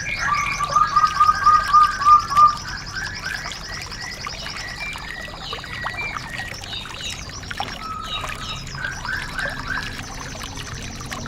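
Songbirds singing on a mixed bird-song training recording for white-eyes: a quick run of about eight loud whistled notes in the first two and a half seconds, then softer chirps and a fast, high, continuous trill over a steady hiss.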